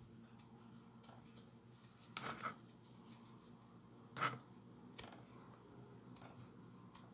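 Faint rustling and rubbing of cloth as a small sewn fabric doll is worked in the fingers and pushed right side out, with two short, louder rubs about two and four seconds in, over a faint steady hum.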